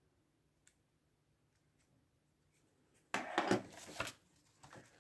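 A faint click, then about three seconds in a loud second of knocks and rubbing as a plastic battery tester and AA batteries are handled and set down on a wooden desk. A few softer knocks follow.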